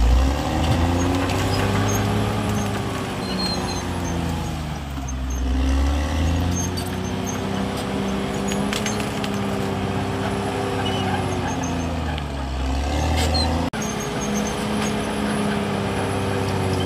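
CAT D6R crawler bulldozer's diesel engine working under load, its note sinking and climbing back twice as the machine pushes and shifts on the slope. A few sharp knocks sound over it.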